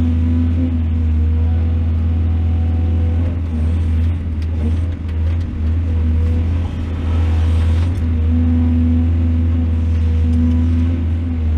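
Large excavator engine running with a steady deep drone, the loudness dipping briefly a few times around the middle.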